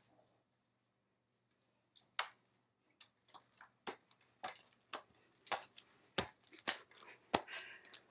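Faint scattered clicks, knocks and rustles of someone rummaging and handling things, sparse at first and coming more often in the second half.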